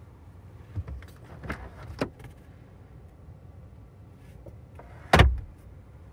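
Porsche 911 (992) glovebox opened with a few quick latch clicks and knocks, then shut with one solid thump about five seconds in, the loudest sound.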